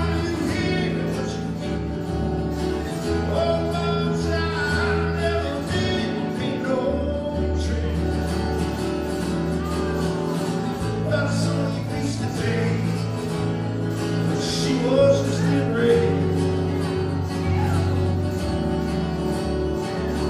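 Live acoustic music: a man singing to his own steel-string acoustic guitar, with a second player tapping bass and melody lines on a long-necked stringed instrument.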